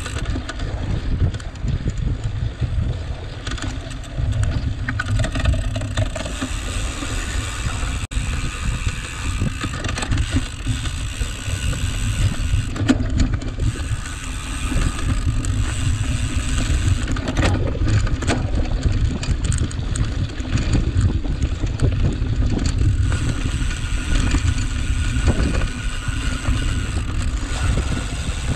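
A cyclocross bike being ridden over dry, rough ground, its frame and drivetrain rattling and clicking, under a steady low rumble of wind on the microphone.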